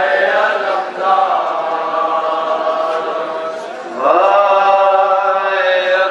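Urdu nauha (Shia lament) sung by a male reciter into a microphone, with a group of men chanting along in unison and no instruments. The notes are long and held, and a new line starts with an upward glide about four seconds in.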